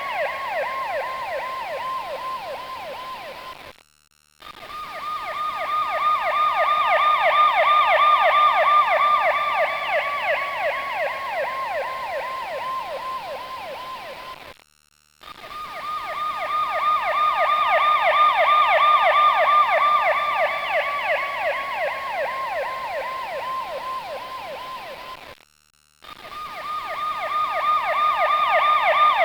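Emergency vehicle siren in a fast warbling yelp, sweeping up and down several times a second. Each pass swells in loudness, then drops in pitch and fades, as a siren does when the vehicle drives past. It cuts out briefly about 4, 15 and 26 seconds in and starts over.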